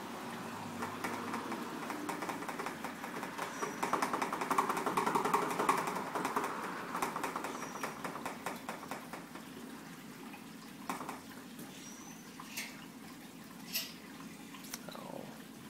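Wort running through a vinyl tube into a glass carboy topped with sanitizer foam: a steady rush of liquid filling the fermenter, loudest about four to six seconds in and easing off after. A few brief knocks come near the end.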